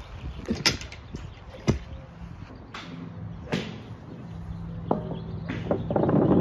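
Sharp cracks of golf clubs striking balls on a driving range, about five spread over several seconds. Near the end there is a louder, duller rustle close to the microphone.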